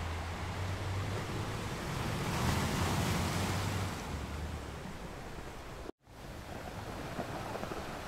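Ocean waves washing onto a shore, one wave swelling and breaking about three seconds in, over a low steady rumble. The sound cuts out for an instant about six seconds in.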